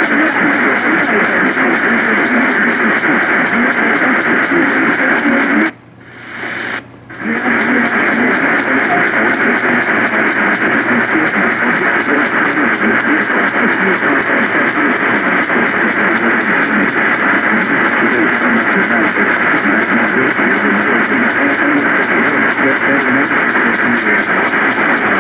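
Steady, loud static hiss from a radio receiver with no programme on it. It cuts out briefly twice, about six and seven seconds in.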